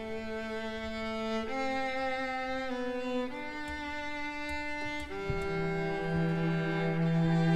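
String orchestra playing slow, sustained bowed chords that change every second or two. A low cello and double bass note comes in about five seconds in, and the music swells toward the end.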